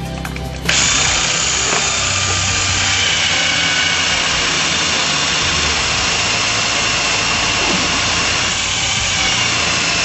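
A brief snatch of music, then, just under a second in, a cordless drill starts and runs steadily as it bores into a block of welded aluminium.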